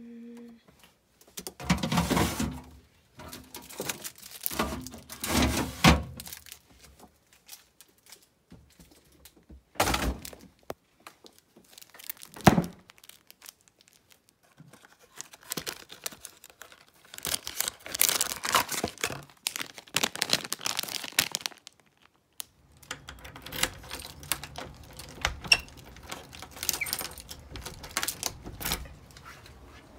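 A string of household handling sounds: knocks and thunks, and plastic packaging crinkling and tearing as a triangular salmon rice-ball wrapper is opened. Near the end, small metallic clicks of a key working a door lock.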